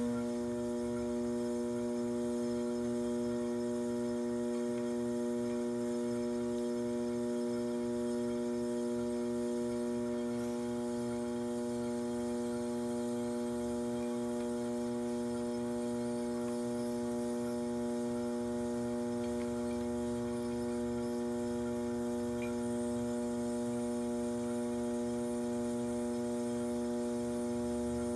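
Electric potter's wheel motor humming steadily as the wheel turns, a level electrical hum of several steady tones that holds unchanged.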